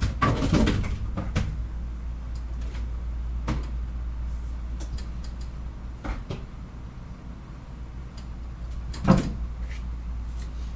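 Knocks and clatters of someone handling objects at a counter: a busy cluster at the start, then single knocks a few seconds apart, one loud one near the end, over a steady low hum.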